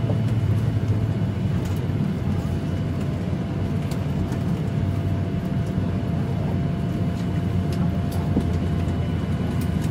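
Steady low hum of a Boeing 737-800 aircraft cabin after landing, with a faint steady whine above it.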